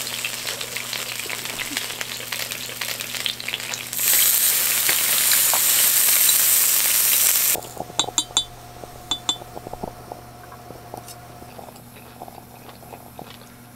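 Beef sizzling and crackling on a hot grill pan, louder from about four seconds in. The sizzle cuts off suddenly about halfway through, leaving a quiet room with a few light clinks.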